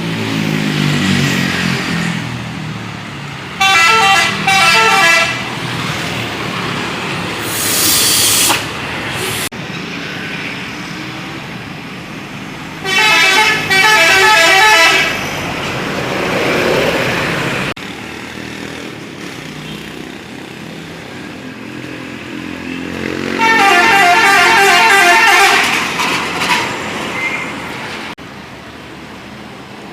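Buses sounding 'telolet' multi-tone musical horns three times, each a loud, few-second melody of chords stepping up and down in pitch, with bus engines running between. A short loud hiss comes about eight seconds in.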